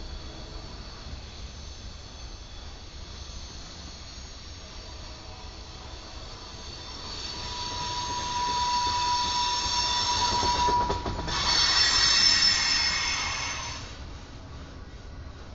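Freight cars rolling past on the rails with a steady low rumble. About seven seconds in, the wheels start squealing in several high, steady tones. The squeal is loudest about twelve seconds in and fades out two seconds later.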